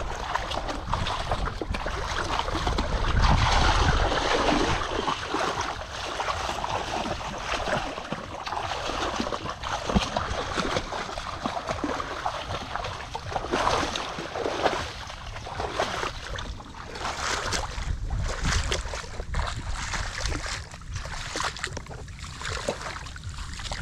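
Shallow water sloshing and splashing, with many irregular splashes as it is waded through and stirred up.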